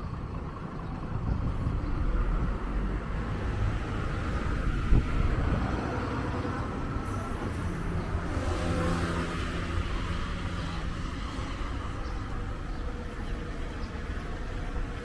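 Windy street ambience: wind buffeting the microphone in a constant low rumble, with road traffic going by and a vehicle's engine note rising about eight seconds in.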